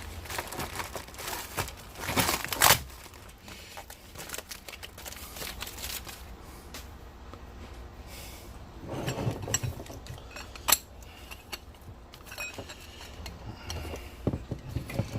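Tape and packaging being pulled off and crinkled by hand, in noisy bursts with a few sharp clicks and clinks of small metal parts being handled.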